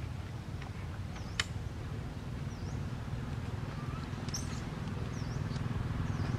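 Outdoor ambience: a steady low hum under a bird's short, high, dipping call repeated about every second and a half, with one sharp click about a second and a half in.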